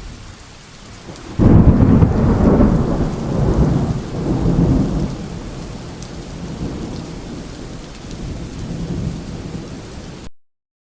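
Thunderstorm: steady rain with a sudden loud thunderclap about a second and a half in that rolls on in long rumbles and slowly fades; the sound cuts off abruptly near the end.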